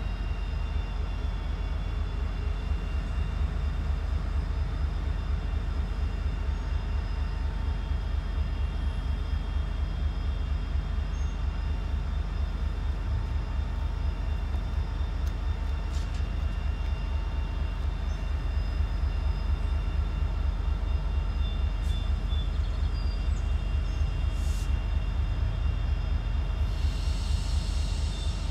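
Norfolk Southern diesel-electric locomotive's engine running at low throttle, a steady low rumble with a fine pulsing beat.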